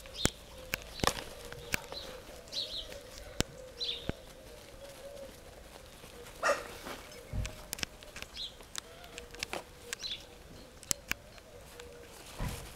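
Welsh springer spaniel puppies moving about and playing on artificial turf: scattered light taps and clicks, with about five short high chirps and a faint steady hum underneath.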